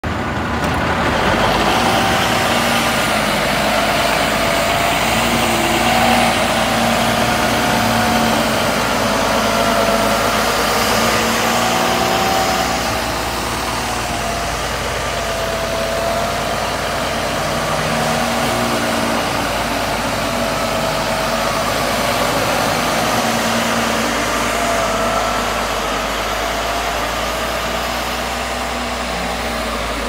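Caterpillar motor grader's diesel engine running steadily under work as the grader spreads and levels gravel road base. Its engine note wavers slightly up and down and drops a little in loudness about halfway through.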